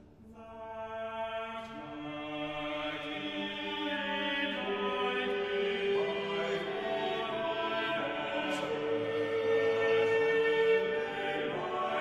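Background choral music: voices singing long held notes, the pitch moving to new notes every few seconds.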